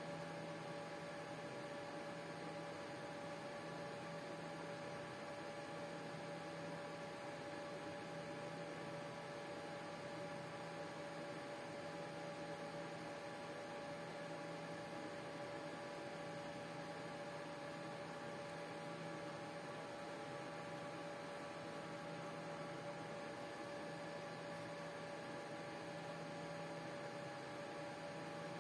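Steady electrical hum of several fixed tones over a low hiss, unchanging throughout.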